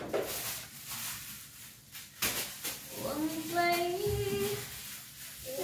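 A few light clicks and knocks, then about three seconds in a voice singing long held notes.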